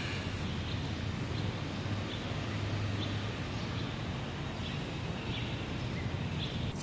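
Steady background hum of a near-empty railway station waiting hall, with a few faint, short high chirps scattered through it.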